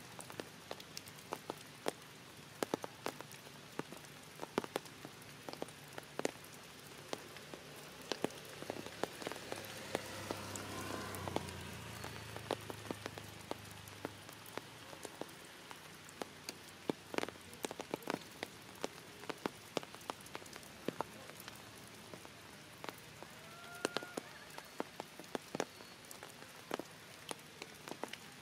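Rain falling, heard as a steady hiss full of irregular sharp drop impacts. A broader swell of louder noise comes and goes about ten seconds in, and a couple of faint short chirps come near the end.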